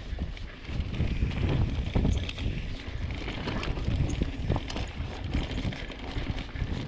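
2018 Rocky Mountain Altitude C50 mountain bike riding fast down a dry dirt singletrack: wind buffeting the camera microphone and the tyres rumbling over the ground, with steady quick clicks and rattles from the bike as it hits bumps.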